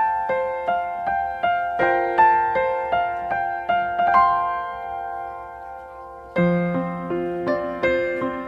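Background music: a piano playing a gentle repeating pattern of single notes, holding a chord from about four seconds in before starting a new phrase with lower notes at about six and a half seconds.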